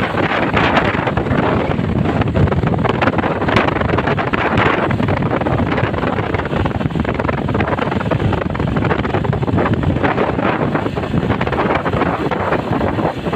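Steady wind noise buffeting the microphone over the engine and road noise of a moving vehicle on the road. There is no horn melody.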